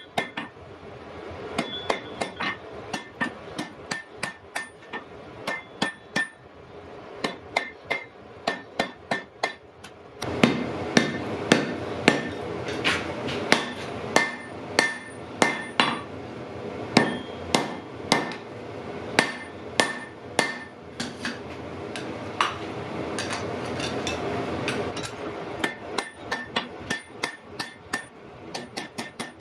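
Blacksmith's hand hammer forging hot iron on an anvil in a steady run of blows, about two to three a second, each with a short metallic ring. From about a third of the way in until near the end, a steady rushing noise sits underneath the blows.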